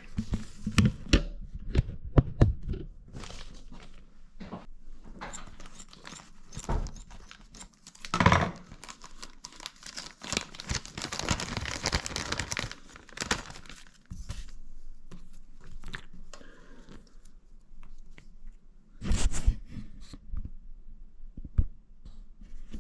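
Spare-part packaging being torn open and handled: rustling and crinkling with scattered clicks and knocks, busiest about halfway through.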